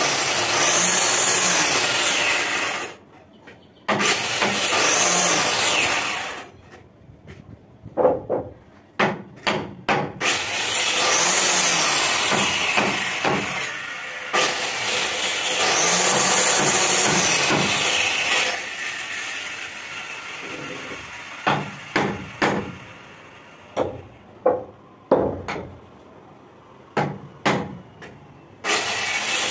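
Electric hand planer cutting along a wooden window-frame member in repeated passes of a few seconds each, its motor whine rising and falling with each pass. Between passes there are sharp wooden knocks as the timber and tool are handled.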